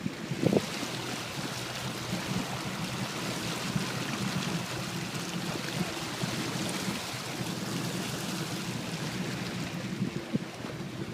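Motorboat under way: a steady engine hum under the rush of water along the hull. A brief knock about half a second in.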